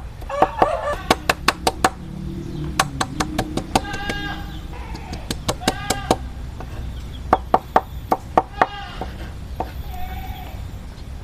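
Knife chopping garlic on a cutting board: sharp taps in several quick, irregular runs. A few short bleat-like animal calls sound between the runs.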